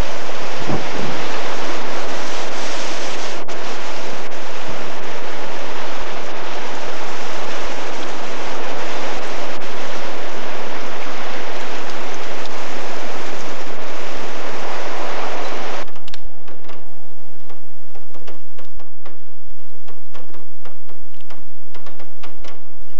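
Steady rushing noise of storm-driven floodwater. About two-thirds of the way through it cuts off suddenly, leaving scattered irregular clicks and ticks.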